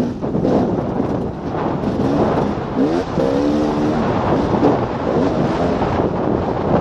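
2014 KTM 300 XC-W's 300 cc two-stroke single-cylinder engine under way on a dirt trail, revving up and down with the throttle, its pitch rising and falling around the middle. Heavy wind noise buffets the helmet-mounted microphone.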